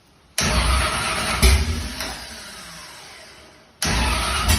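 Gasser's faulty starter motor engaging twice. Each try starts suddenly, gives a loud clunk about a second in, then trails off in a falling whine as it spins down without the engine catching.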